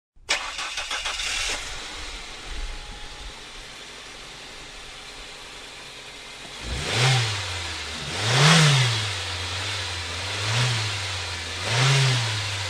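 A car engine starting: the starter cranks with a rapid rattle for about a second, the engine catches and settles into a steady idle, then from about halfway through the throttle is blipped four times, the pitch rising and falling with each rev.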